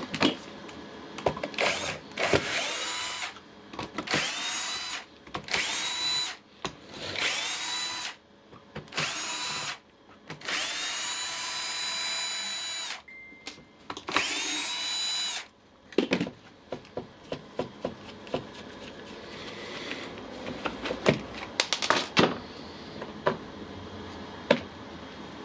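Milwaukee impact wrench run with no load in about eight short trigger pulls, each a steady motor whine that starts and stops sharply, the longest lasting a few seconds; a test run after reassembly to check whether its bad running noise is gone. Near the end the motor stops and only small clicks and taps of the tool being handled remain.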